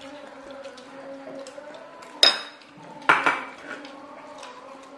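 Metal spoons clinking and scraping on ceramic plates during a meal, with small ticks throughout and two sharp, ringing clinks about two and three seconds in.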